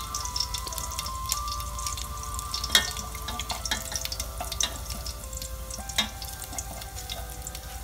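Small chopped pieces frying in a little oil in a metal pot: a steady crackling sizzle, with a few sharper clicks as chopsticks stir. Light background music plays over it.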